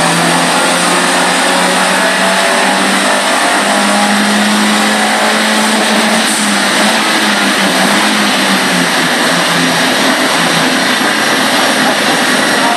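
Turbocharged Citroën Saxo VTR's 1.6-litre four-cylinder petrol engine running under load on a rolling-road dyno over a loud, steady rush of noise. Its pitch holds fairly even, climbs a little midway, then eases back.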